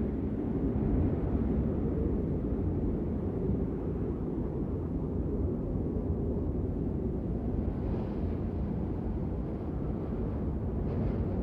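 Steady low rumbling outdoor ambience of a snowfall, with no distinct events.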